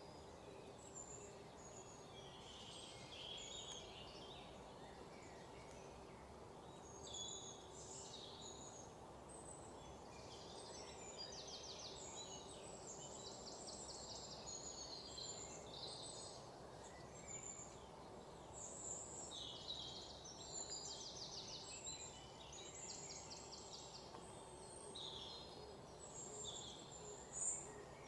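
Birds chirping on and off, with a few quick trills, over a faint steady hum.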